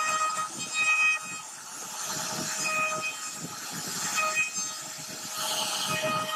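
CNC router spindle carving a relief pattern into a wooden board. A pitched whine breaks off and returns every second or so as the bit cuts, over a rough, noisy cutting sound.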